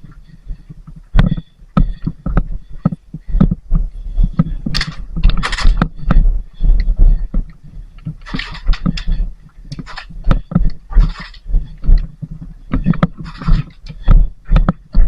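Irregular thumps and scrapes with heavy low rumble and short bursts of hiss, like movement and handling noise on a body-worn microphone.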